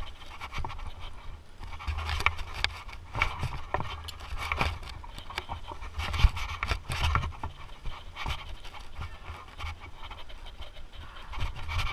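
Mountain bike ridden over a bumpy dirt trail: steady wind noise on the mic, with frequent clicks and rattles from the bike jolting over the ground.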